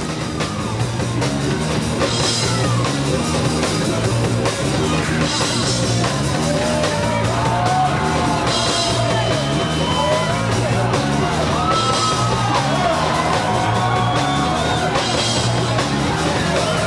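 Live rock band playing loud: electric guitar and drum kit, with a cymbal crash about every three seconds over a steady beat.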